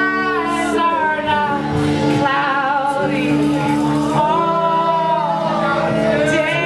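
Live band music with a woman singing long, gliding held notes over the band.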